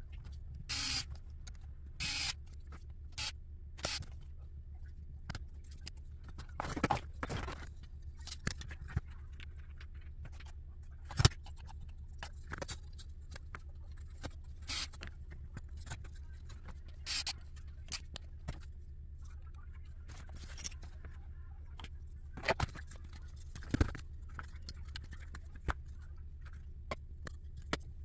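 Screwdriver and small RC car parts being handled on a workbench: scattered clicks, taps and short scrapes of screws, plastic arms and a carbon fiber chassis plate, over a steady low hum.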